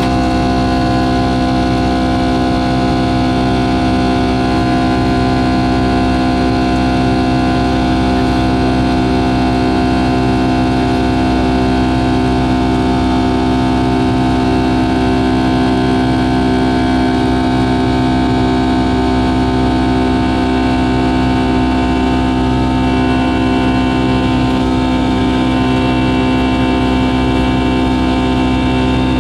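Boeing 757-200's Pratt & Whitney PW2000 turbofan engines running at climb power after takeoff, heard inside the cabin: a steady drone with several high whining tones held over it.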